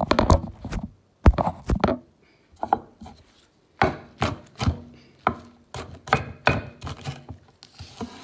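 Kitchen knife chopping fresh parsley and garlic on a cutting board: a quick cluster of strikes, a short pause, then a run of sharp chops about two a second.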